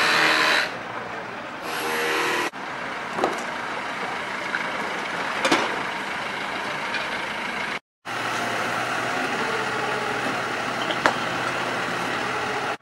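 Street noise with a vehicle engine running steadily, broken by a few sharp knocks and clinks. The sound cuts off briefly twice.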